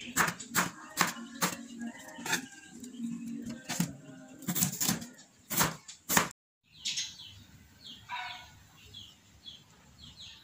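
Kitchen knife chopping through peeled raw potatoes onto a wooden cutting board: sharp knocks about two a second. After a sudden break about six seconds in, faint high bird chirps repeat in the background.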